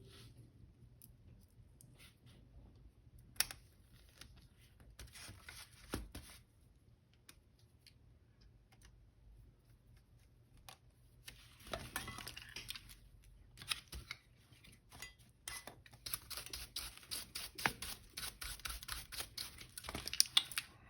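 Small tools and parts of a Canon A-1 film camera being handled during reassembly: scattered light clicks and taps, short scraping rubs, and a dense run of small rapid clicks and scratches over the last few seconds.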